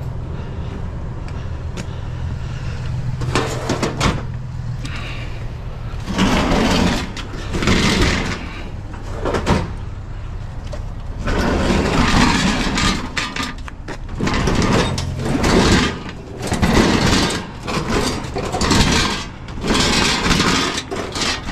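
A pickup truck's engine idling, then from about six seconds in, repeated clattering and scraping in uneven bursts as the metal and glass parts of a gas range are handled and pulled apart.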